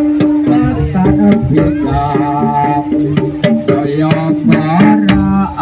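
Instrumental passage of a Javanese-language pop song, with hand drums beating a quick rhythm under held melody notes.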